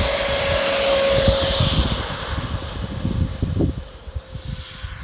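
Electric ducted-fan motor of an FMS Avanti V1 radio-control jet at full throttle on takeoff: a steady high whine that fades after about two seconds as the model pulls away. Wind buffets the microphone throughout.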